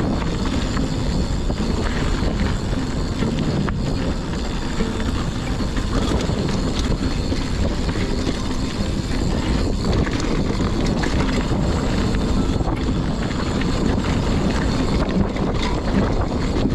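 Mountain bike riding fast down a dirt trail: steady wind rush on the microphone over the rumble of knobbly tyres, with the bike clattering and rattling over the rough ground.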